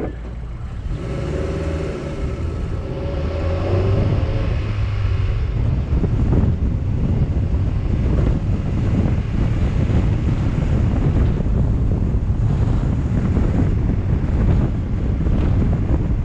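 Road traffic rumble with wind buffeting the microphone. A wavering engine drone stands out in the first few seconds, then the rumble and wind grow louder about four seconds in.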